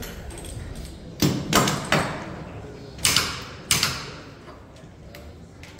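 Pneumatic wheel gun on a Formula 1 car's centre-lock wheel nut, five short loud bursts: three in quick succession about a second in, then two more around three seconds in.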